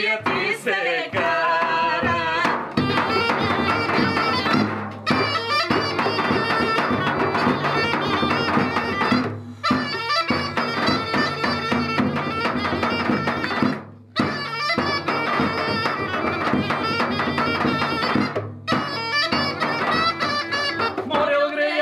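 Bulgarian gaida bagpipe playing a folk tune over a steady low drone. The sound dips briefly a few times.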